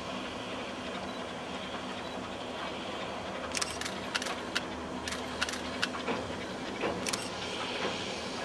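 Replica steam locomotive Mary Ann and its train heard at a distance crossing a high trestle bridge: a steady low rumble, with a run of about ten sharp metallic clicks and clinks from about three and a half to seven seconds in.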